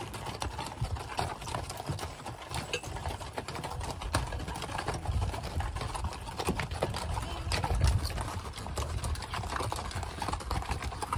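Hooves of a mule pack string plodding past on a dirt trail: a run of irregular clip-clops and knocks over a steady low rumble.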